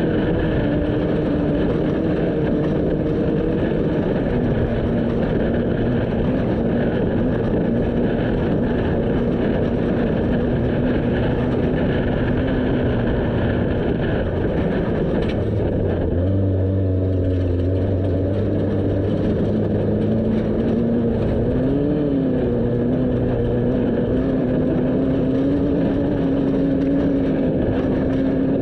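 A vehicle's engine running steadily over a constant rushing noise. Its pitch drops slightly about four seconds in, a deeper drone joins about halfway through, and the pitch briefly rises and falls a little later.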